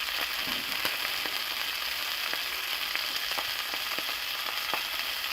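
Beef liver sizzling as it sears in hot bacon grease on a medium-high burner, a steady hiss with scattered spitting pops.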